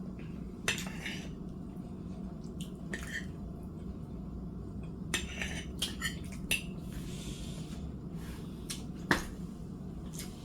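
Eating noises from a mouthful of fried chicken: scattered sharp clicks and smacks of chewing and biting into crisp breading, with a steady low hum underneath.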